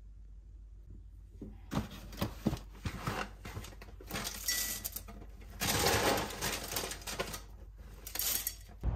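Honey Cheerios being poured from their box into a bowl of milk: a rustling, rattling patter of dry cereal that starts about a second and a half in, is densest a little past the middle and comes again near the end.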